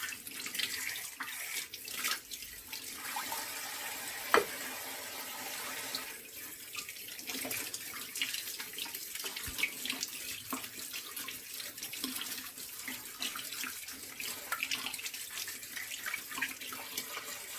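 Tap water running into a sink while cold-press juicer parts are rinsed and scrubbed, with small clicks and scrapes throughout and one sharp knock a little over four seconds in.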